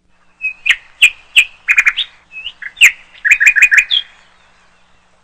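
A small bird chirping: a string of short, high chirps, some in quick runs of three or four, stopping about four seconds in.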